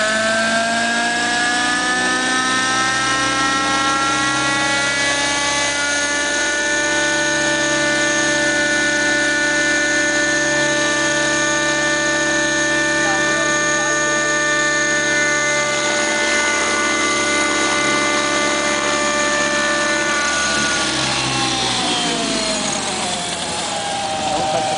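Nitro-engined RC helicopter running in a hover, with a steady whine of engine and rotors. The pitch rises slightly at first, holds level, then drops near the end as the throttle comes back.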